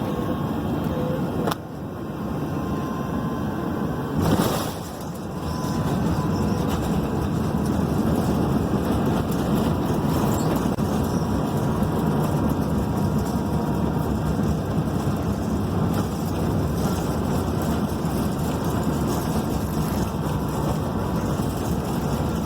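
Airliner landing: a loud, steady roar of jet engines and rushing air, with a sharp knock about a second and a half in and a brief louder burst about four seconds in.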